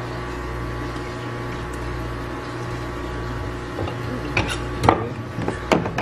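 A steady machine hum with a low drone. From about four and a half seconds in, a few sharp knocks and clicks sound over it.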